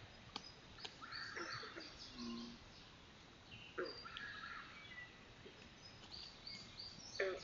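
Night wetland chorus: many short chirps, squeaks and trills from frogs and birds, with a few sharp clicks and a brief low note about two seconds in.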